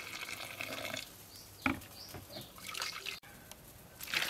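Thick blended red chili sauce sloshing and dripping as a blender jar is tipped to pour it out, with a dull knock at about a second and a half in.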